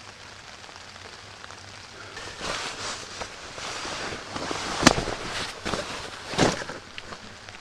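Fabric of a jacket rustling close by as it is pulled off, with a sharp click about five seconds in and another loud rustle a moment later, over steady light rain on a tarp.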